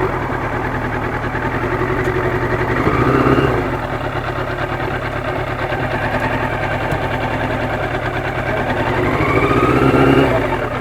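Yamaha FZR1000's inline-four engine running under way, with rushing wind noise. It swells twice as the bike picks up speed, about three seconds in and again near the end, the pitch rising the second time.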